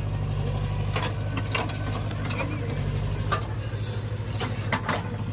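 Heavy diesel machinery running steadily at a low hum, with a run of sharp metallic clanks and knocks between about one and five seconds in, as a backhoe loader works loading soil.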